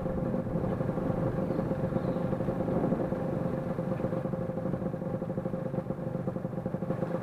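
Motorcycle engine running steadily at an even pitch, neither revving up nor dying down.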